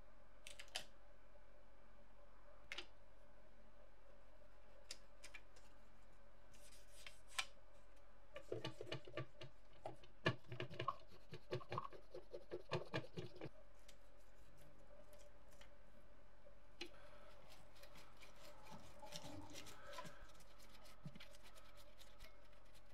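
Cotton swab scrubbing over a small circuit board by its soldered pins: scattered light scratches and clicks, and in the middle about five seconds of quick, closely spaced scratching strokes.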